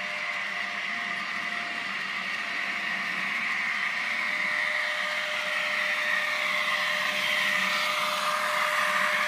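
HO-scale model electric locomotive approaching on the track, its motor whirring steadily with wheels running on the rails, growing gradually louder.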